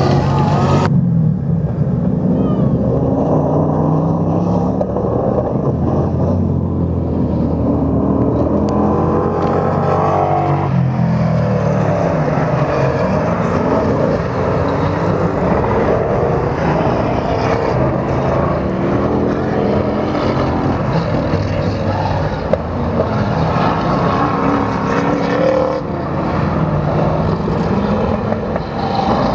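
Several autocross buggies' engines racing, revving hard with the pitch repeatedly climbing and dropping as they accelerate and ease off, often overlapping.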